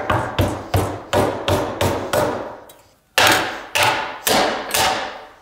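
Mallet repeatedly striking a thin sheet-metal saddle strainer plate to round it out and take out its ridges, each blow with a short metallic ring. A quick run of about seven blows, a brief pause just before halfway, then four or five more.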